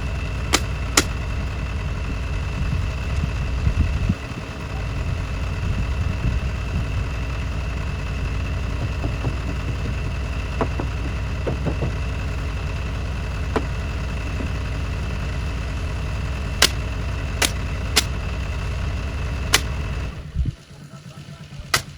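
Car engine running steadily, heard from inside the cabin, with a few sharp clicks. The engine sound stops suddenly about 20 seconds in.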